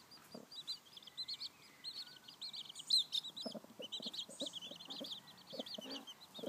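Newly hatched chicks peeping rapidly and continuously, with a hen's low clucks joining in from about halfway through.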